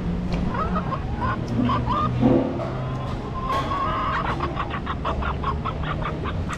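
Chicken clucking: a few short, separate clucks, then a fast run of clucks about four seconds in.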